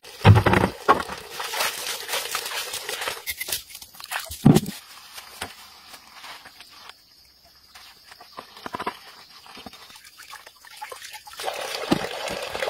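Scattered knocks and rustling, with a loud thump just after the start and another about four and a half seconds in. Near the end, water starts pouring steadily from a pipe into a plastic basin.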